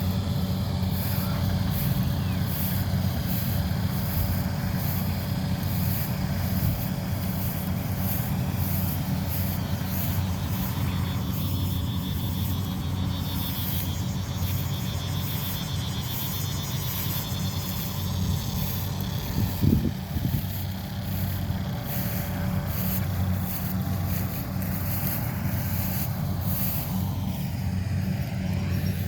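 Kubota DC-70 rice combine harvester's diesel engine running steadily under load while harvesting, with fast fine clatter from the machinery. One brief thump comes about two-thirds of the way through.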